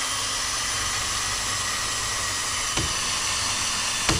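Cordless drill running steadily overhead with a continuous motor whine while it anchors a branch to the ceiling. A couple of brief clicks come in the second half.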